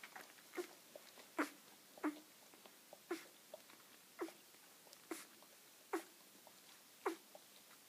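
Four-day-old golden retriever pup giving short squeaks, about one a second, while its mother licks it.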